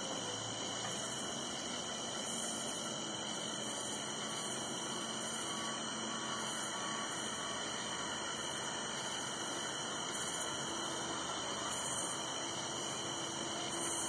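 Steady outdoor evening background noise: an even hiss with a constant high-pitched band and no thunder heard.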